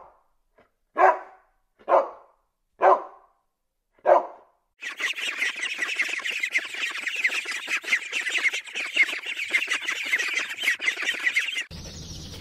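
Golden retriever barking, four single barks about a second apart. Then a brood of Pekin ducklings peeping all together in a dense, continuous high chatter.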